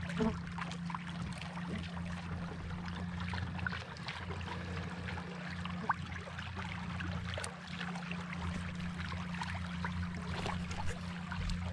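Water rushing and splashing along the hull and outrigger stabilizer float of a moving canoe, over a steady low motor hum.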